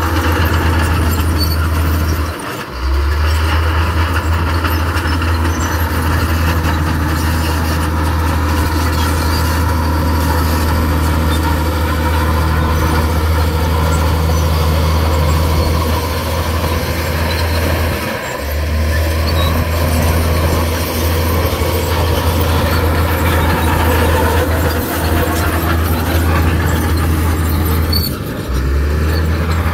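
Komatsu crawler bulldozer's diesel engine running steadily under load, with track and machinery noise; the low engine note drops out briefly three times, about two and a half seconds in, around eighteen seconds, and near the end.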